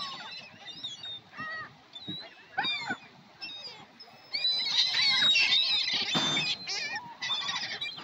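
A flock of gulls calling: scattered short, high, gliding cries at first, then a dense stretch of many overlapping calls from about halfway through.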